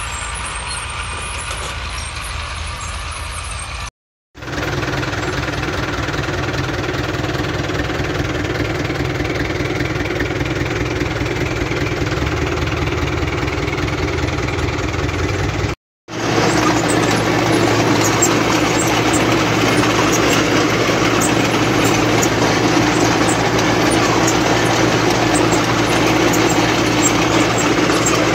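Farm tractor diesel engines running steadily while ploughing, in three takes split by two brief silences about four and sixteen seconds in; the last take is the loudest.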